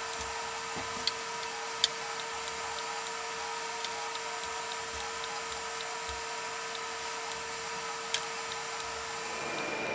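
Small plastic clicks, roughly one or two a second, as the dip switches on an infrared beam sensor unit are flicked by hand, over a steady electrical tone.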